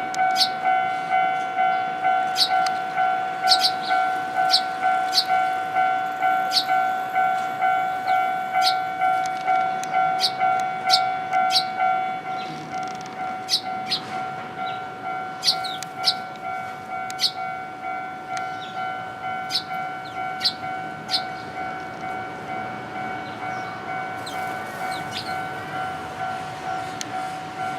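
Japanese railway level-crossing alarm ringing its steady electronic two-tone bell, about one and a half strokes a second, a little quieter after about twelve seconds. Eurasian tree sparrows chirp over it with many short high calls.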